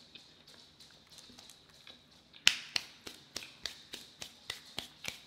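Clear plastic crackling and clicking as it is handled. A loud sharp crackle comes about halfway in, followed by a steady run of sharp clicks about four a second.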